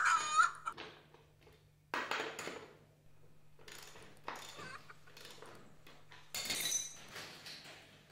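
Hands working a wheel and its bolt on a wooden chicken-tractor frame: separate clinks, knocks and scrapes of metal and wood. The loudest come at the very start and about two seconds in, with a longer scrape near the end.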